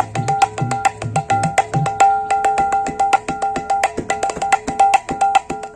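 Srikhol (khol), the two-headed clay drum of Bengal, played by hand in a fast rhythm. Ringing strokes on the small treble head sound over deep bass-head strokes for about the first two seconds, then the treble strokes carry on alone.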